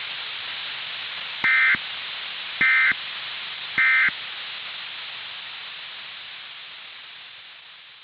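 Three short buzzy digital data bursts about a second apart, the end-of-message (EOM) code that closes an Emergency Alert System broadcast, over a steady radio static hiss that slowly fades out.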